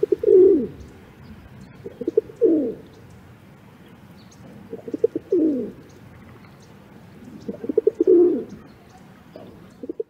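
Rock pigeon cooing: four rolling, guttural coo phrases about every two to three seconds, each a few quick stuttering notes running into a longer coo that falls in pitch. A fifth phrase begins at the very end.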